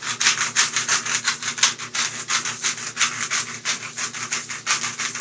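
Hand-twisted salt grinder crushing coarse pink salt crystals: a quick, even run of gritty rasps, about six a second.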